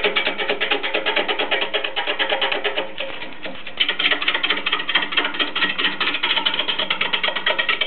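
Turning gouge roughing a large log blank spinning on a wood lathe: a fast, even rhythm of knocks, roughly ten a second, as the tool cuts the uneven surface. The cutting eases off about three seconds in, then resumes.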